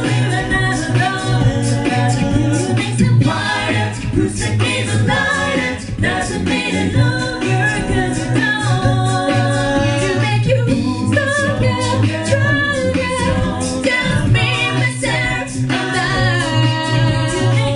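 A cappella vocal group singing live in several-part harmony, over a sung bass line and a steady beat of vocal percussion.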